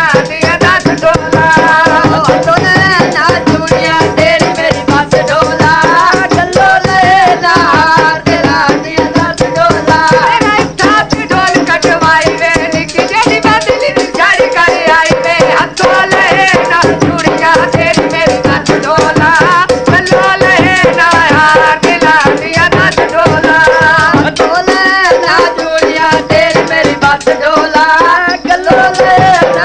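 Punjabi folk mahiya song: a singing voice over fast, steady percussion of jingling chimta tongs and dhol drum.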